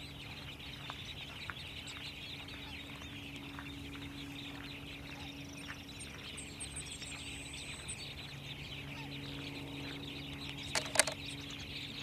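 Steady, dense outdoor chorus of small animal chirps over a faint low hum, with a quick run of high, thin chirps about halfway through and two sharper calls near the end.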